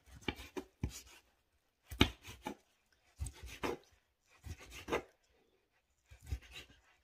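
Chef's knife slicing through a boiled smoked sausage and knocking on a wooden cutting board, one cut about every second, six in all.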